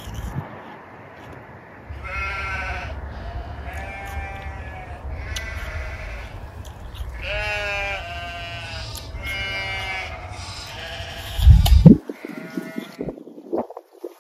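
About seven wavering, bleat-like calls, each roughly a second long, over a low rumble, with a loud low thud near the end.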